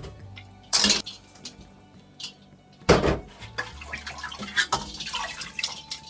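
Sliced sea bass being washed in a stainless bowl of salted ice water for arai: a splash about a second in, a louder one near three seconds, then water sloshing as the slices are swished by hand, with the metal bowl and strainer knocking and clinking.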